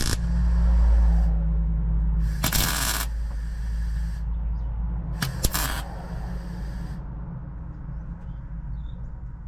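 Welder laying short tack welds on the truck's sheet-metal firewall against a copper backing: a few half-second bursts of crackling hiss over a low hum, stopping about seven seconds in.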